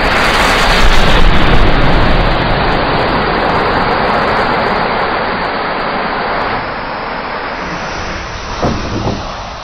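A large mass of burning matches flaring up in one loud, steady rushing whoosh of flame. It is loudest about a second in and eases slowly, with a few crackles near the end.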